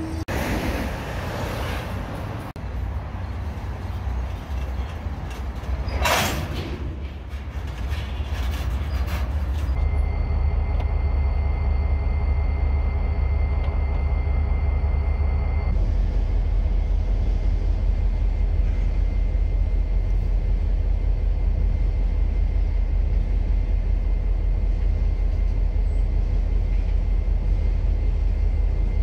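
Double-stack intermodal freight cars rolling past on the rails, with two loud sudden noises, one right at the start and one about six seconds in. From about ten seconds on, a steady low rumble of BNSF diesel locomotives and moving train cars.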